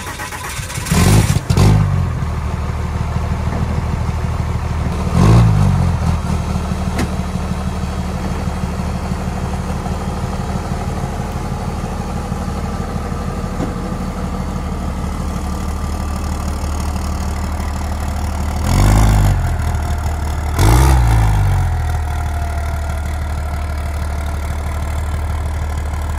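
Dodge Ram pickup's Cummins diesel engine idling steadily, blipped up and back down five times as the truck is driven down off a trailer.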